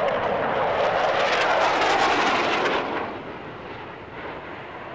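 Jet engine roar of F-4 Phantom fighters flying overhead, a loud rushing noise with a ragged crackle that drops off sharply about three seconds in to a fainter, steady jet rumble.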